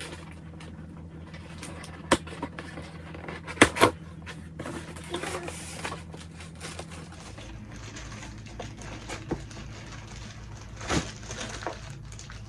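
Parts and packaging of a ring light kit being handled during unboxing: a few sharp knocks and clicks, the loudest pair about three and a half seconds in, over a steady low hum.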